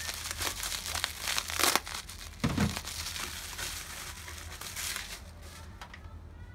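Packaging being unwrapped by hand, with irregular crinkling and crackling and one louder crackle about a second and a half in. A soft thump follows shortly after.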